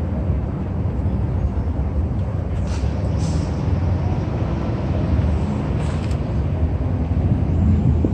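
Steady, loud low rumble of city street traffic, with two brief hisses, about three seconds in and again around six seconds in.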